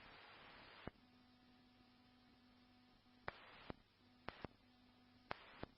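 Near silence in a scanner radio feed between transmissions: faint hiss with a faint low steady hum that drops in and out, and a handful of tiny clicks.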